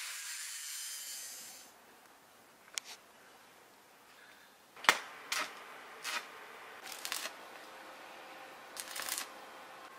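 Electric angle grinder running with its disc on a dry wooden stick, a high steady whine that stops before two seconds in. Later come about six sharp clicks, singly and in small clusters, from metal rods and wire being handled and snipped with pliers.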